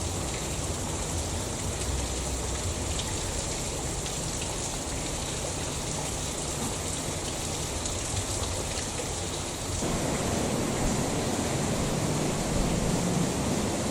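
A steady rushing noise like rain or running water. About ten seconds in it grows louder and deeper.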